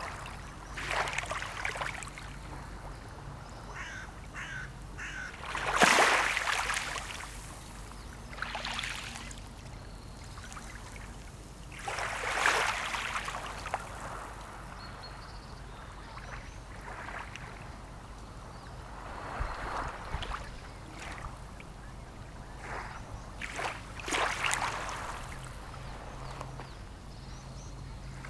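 Birds giving harsh, cawing calls about a second long, one every few seconds, against a steady low background of sea ambience.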